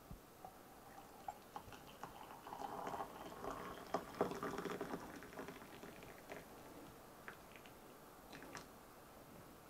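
Freshly boiled water pouring from a Russell Hobbs stainless steel electric kettle into a ceramic mug. It is faint, strongest in the middle of the pour, and thins to a trickle near the end, with a few light clicks.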